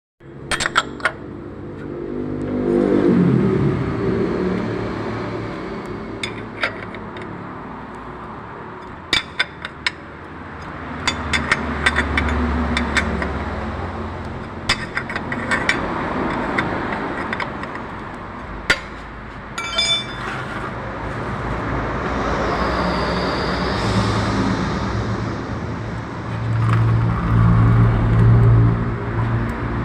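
A motor vehicle engine running and changing pitch, with scattered sharp metallic clicks and clinks in clusters.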